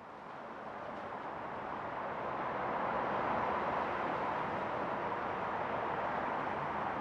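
Steady rushing outdoor background noise, like distant road traffic, fading in over the first few seconds and then holding level.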